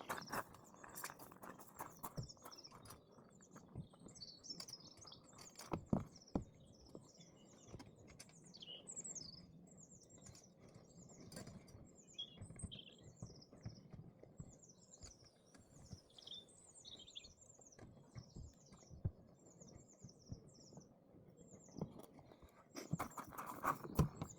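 Small birds chirping and singing over a faint background, with scattered knocks and clatters; the loudest knock comes about six seconds in, and there are more near the end.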